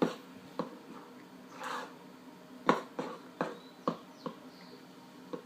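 Spoon stirring a thick, sticky mixture of white glue and laundry detergent in a pot, knocking against the container in irregular clicks, about a dozen over a few seconds. The mix is setting into slime.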